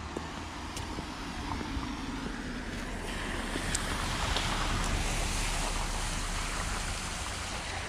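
Wind buffeting the microphone over an even rushing hiss, which swells in the middle and eases toward the end.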